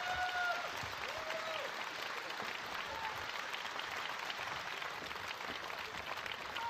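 Audience applauding: dense, steady clapping. A few short held tones sound over it near the start and about a second in.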